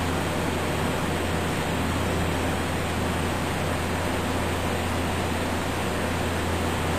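Steady low hum and even hiss of a CNC milling machine running, with no distinct clicks or changes while it slowly moves its touch probe around a part.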